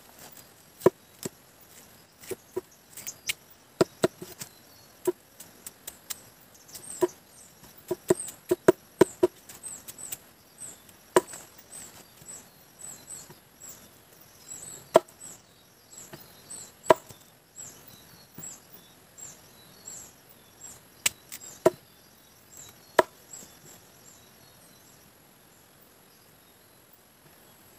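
Irregular sharp knocks like chopping, clustered in the first ten seconds and sparser afterwards. Many short high chirps repeat in the background for much of the time, over a steady very high insect-like whine.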